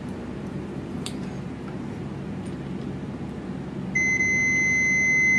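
Digital multimeter's continuity beeper sounding one steady high-pitched beep, starting about four seconds in, as the test probes touch a shorted point on the amplifier's circuit board.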